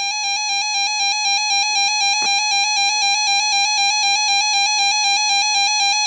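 A loud, buzzy electronic tone that warbles slightly and pulses about three times a second, slowly growing louder, then cutting off abruptly near the end.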